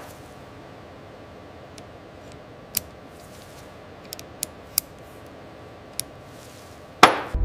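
Steel vernier caliper clicking against a machined steel part as its jaws are closed and set: a handful of short, sharp metallic clicks spaced irregularly over a faint hiss. A loud sudden hit comes near the end.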